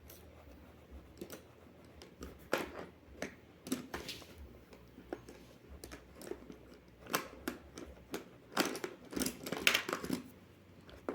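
Irregular scratching and clicking of colored pencils and pens being handled and set down on a tabletop, with a few louder clusters of clicks.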